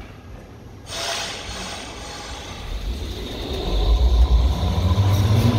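Berlin U-Bahn train pulling out of an underground station: a hiss about a second in, then a low rumble that builds and grows loud as the train gathers speed, its motor hum beginning to rise in pitch near the end.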